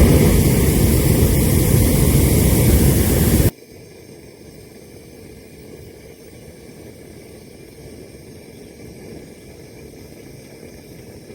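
Hot air balloon's propane burner firing in one long, loud blast that cuts off suddenly about three and a half seconds in, followed by a much quieter steady hiss.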